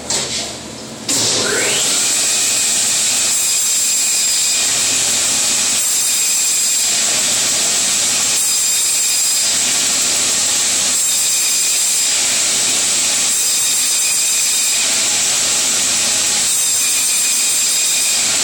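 Butcher's meat band saw switched on about a second in, then running steadily and loudly while cutting through pork loin rib bones to chine the backbone.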